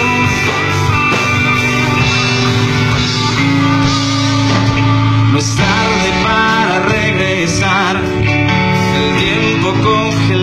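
Live band playing an instrumental passage: guitars, keyboard, bass and drums. From about halfway through, a lead line with wavering, bent notes plays over steady held chords.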